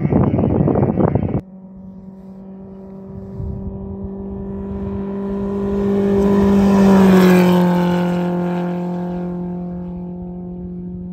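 A rally off-road buggy's engine held at steady high revs as it comes down a gravel stage. It grows louder to a peak about seven seconds in, dips in pitch as it passes, then fades away. The first second or so is louder, rougher engine noise that cuts off abruptly.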